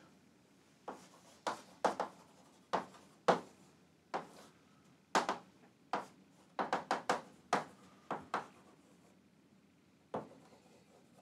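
Chalk tapping and scraping on a chalkboard as words are handwritten: short, sharp strokes at an uneven pace, with a pause of over a second near the end.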